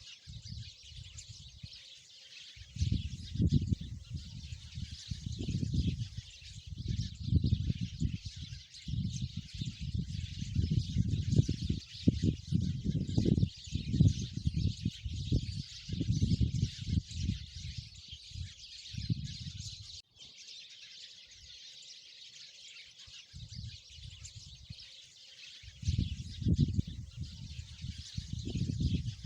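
Sparrows chirping in a dense, continuous chatter. Irregular low rumbling bursts come and go underneath and are louder than the birds.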